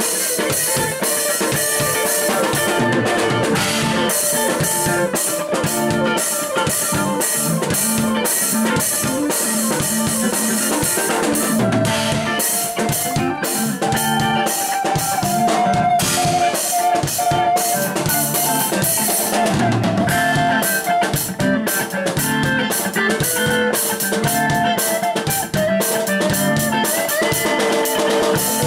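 Instrumental music with a steady drum-kit beat and guitar, played without a break.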